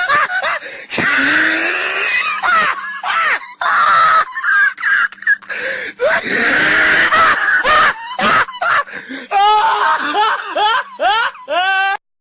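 A man laughing uncontrollably in long high-pitched fits, the pitch sliding up and down, broken by breaths. It cuts off abruptly near the end.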